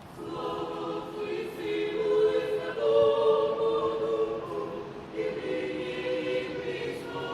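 Choir singing unaccompanied in long held chords; one phrase ends about five seconds in and the next begins.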